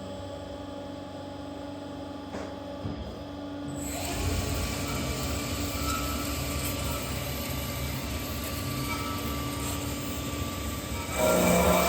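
A Berg & Schmid GBS305 automatic CNC mitre band saw running with a steady hum. It grows louder about four seconds in, and turns much louder with a broad, grinding noise near the end.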